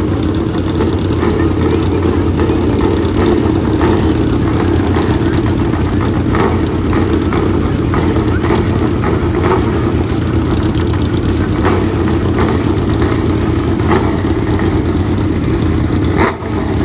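Car engine running steadily at a constant note, with no climbing rev of a launch; the sound dips briefly near the end.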